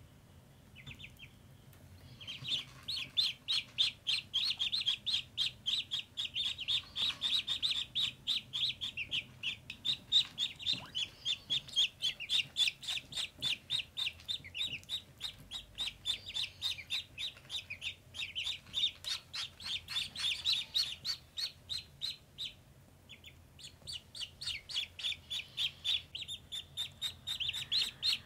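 Ducklings peeping: a fast run of short, high cheeps, several a second, starting about two seconds in and breaking off briefly near the end.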